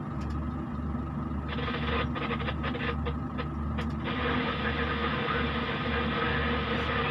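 Diesel engine of a Hyundai 140W wheeled excavator running steadily under load. A run of sharp clatters comes between about a second and a half and four seconds in, then a strong steady hiss sets in as the machine works harder.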